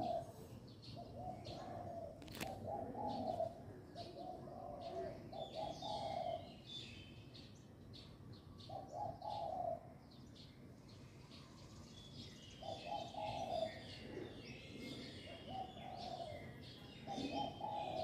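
A dove cooing in a series of low, repeated phrases of about a second each, with pauses between them. Small birds chirp higher in the background.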